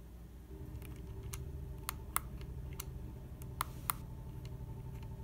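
Small push buttons on a 3D-printed tricorder prototype clicking as they are pressed, about ten sharp clicks over three seconds. A faint steady low hum runs under them.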